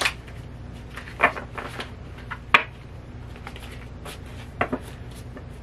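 A new deck of stiff tarot cards being shuffled by hand, the cards clacking against each other in a few separate sharp clicks, the loudest about halfway through, with soft rustling between.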